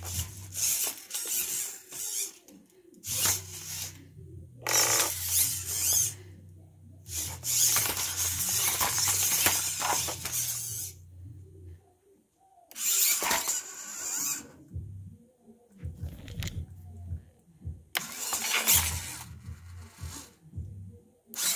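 High-torque hobby servo motors of a 3D-printed quadruped robot, whining and grinding in repeated bursts as its legs move, the longest burst about four seconds. Under the bursts is a low steady hum through the first twelve seconds that comes back now and then later.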